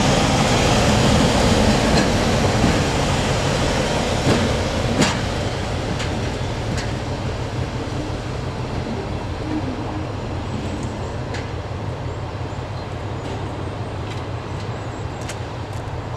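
Class 17 Clayton diesel locomotive running as it moves off along the track, its engine note fading steadily as it draws away. A few sharp clicks stand out about four and five seconds in and again later.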